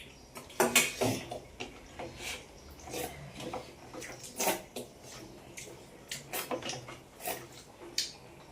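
Close-up eating sounds: irregular wet smacks and clicks of chewing and food being handled, with light knocks on a plate, sharpest about a second in and again near the end.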